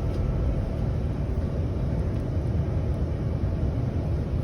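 Steady low rumble of a commuter train running between stations, heard inside the carriage.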